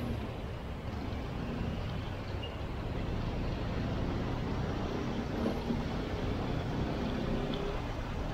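A vehicle running: a steady low rumble with no distinct knocks or events.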